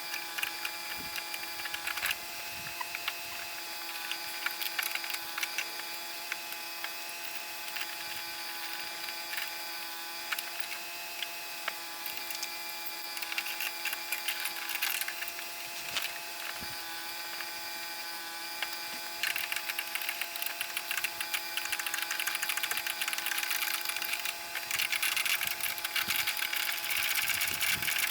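Hand tools clicking and clinking against metal while bolts are fitted to a lawn mower deck's blade spindle housing, with scattered taps at first and dense, rapid clicking about two-thirds of the way in. A steady hum runs underneath.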